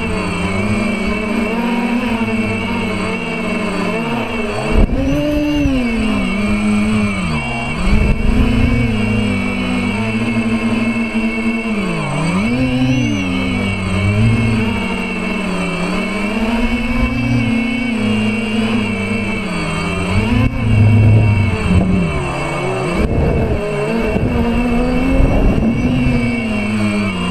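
DJI F450 quadcopter's electric motors and propellers buzzing, heard close up from a camera on the craft. The pitch dips sharply and climbs back several times as the throttle is worked, with short low rumbles in between.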